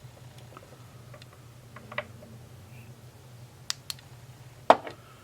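A few light, sharp clicks and taps from fly-tying tools and materials being handled at the vise, the loudest near the end, over a low steady hum.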